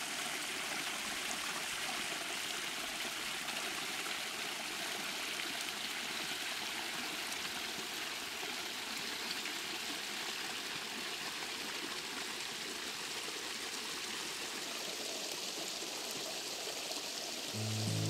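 Water from a small cascade splashing steadily over rocks into a pool. Acoustic guitar music comes in near the end.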